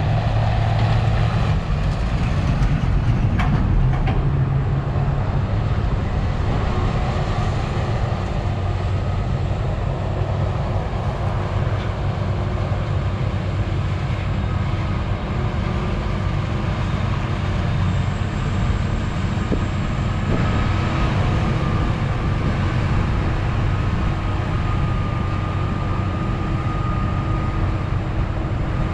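Claas Jaguar 970 forage harvester chopping maize, with a tractor hauling the trailer alongside: a steady machinery drone with a thin high whine over it in the second half.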